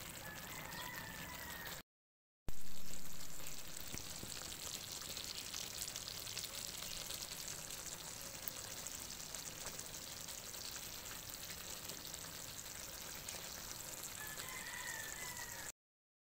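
Bicol express (pork in coconut milk with chilies) simmering in a pan: a steady bubbling, sizzling crackle, loudest just after a short break about two seconds in.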